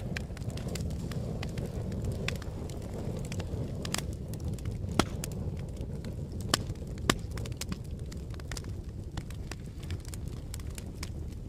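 Fire burning with a steady low rumble and frequent sharp crackles and pops, a few louder pops in the middle.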